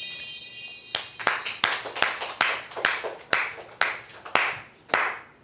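A chime sound effect rings out and fades in the first second, then hands clap slowly and evenly, about two claps a second, some ten claps in all: an irritating, mock-ceremonial round of applause.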